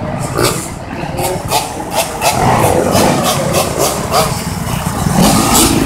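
Several motorcycle and dirt bike engines running nearby.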